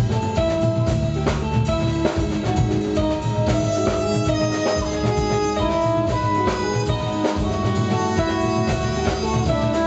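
Live jazz-funk band playing: drum kit, electric bass, electric guitar and keyboards, with saxophone and trumpets playing held melody notes over the groove.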